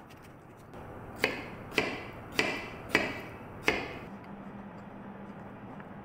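Kitchen knife chopping through melon onto a plastic cutting board: five sharp knocks about half a second apart, each ringing briefly.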